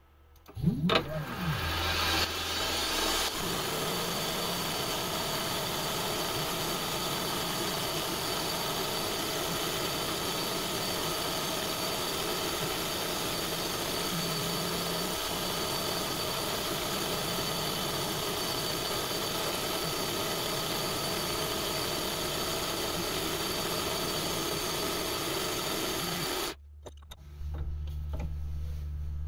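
SIEG X3 CNC milling machine facing an aluminium block with an end mill. The spindle winds up in pitch over the first couple of seconds, then a steady cutting noise runs for over twenty seconds. The cutting stops abruptly near the end, leaving a low hum.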